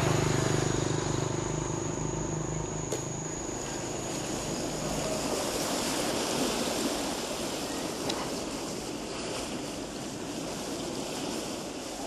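Steady rushing outdoor noise, with a held low music chord that fades out about three seconds in.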